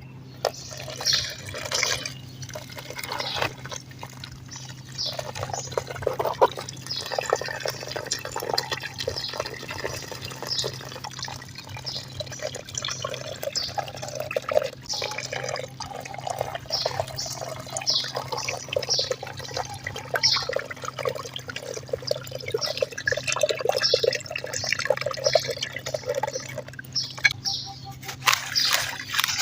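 Wet dirt crumbling, with many small crunches and crackles and a wet, dripping quality, over a faint steady low hum.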